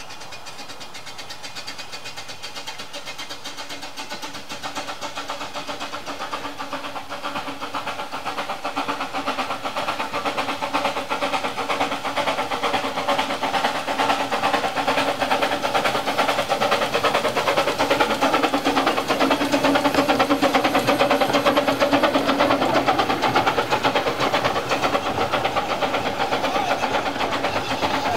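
A 12¼ in gauge Exmoor-built steam locomotive running with its train, its rapid exhaust beats growing louder as it approaches and loudest about two-thirds of the way through.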